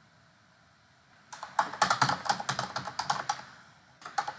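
Typing on a computer keyboard. After about a second of quiet comes a quick run of key clicks lasting roughly two seconds, then a short pause and a few more keystrokes near the end.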